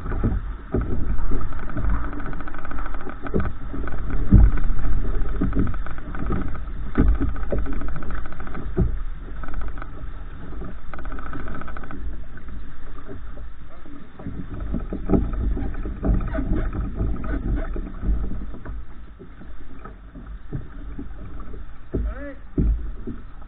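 Choppy water slapping against a kayak hull, with wind buffeting the microphone as a heavy, uneven rumble, and scattered irregular knocks and clicks.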